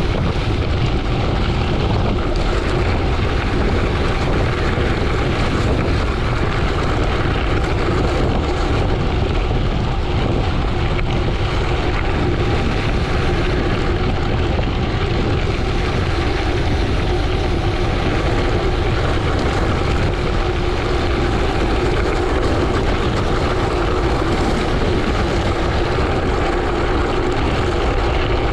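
Steady rush of wind on the microphone mixed with tyre rumble from a gravel bike descending at speed, heaviest in the low end, with a faint steady hum.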